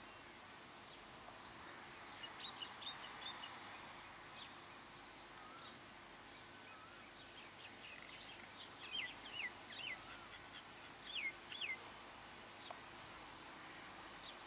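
Birds chirping and calling over faint steady outdoor background noise, in two spells: quick chirps a couple of seconds in and louder swooping calls around ten seconds in.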